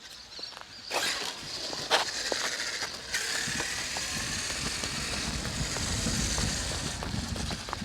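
Electric Traxxas X-Maxx RC monster truck driving on the street: steady tyre and drivetrain noise with scattered clicks and crunches, growing fuller about three seconds in.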